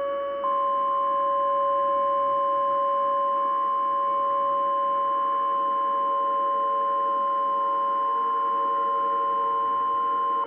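Emergency alert attention tone: a steady electronic drone of several held pitches at once, one higher pitch the most prominent. It steps up slightly in loudness about half a second in, holds unchanged for about ten seconds and cuts off abruptly.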